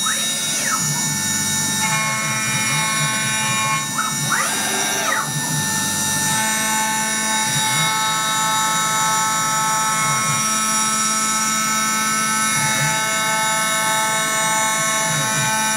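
Electric power tool running steadily with a whine and a low hum, its pitch briefly rising and falling near the start and again about four to five seconds in.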